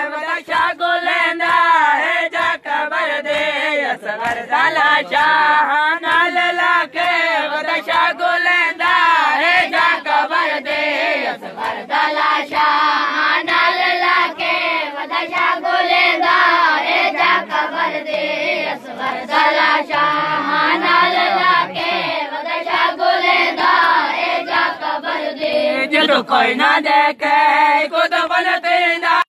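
A group of boys chanting a noha, a Shia mourning lament, in unison, with steady hand slaps on the chest (matam) keeping time.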